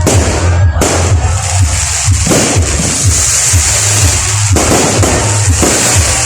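Aerial fireworks popping and crackling in several bursts over loud music with a heavy bass beat.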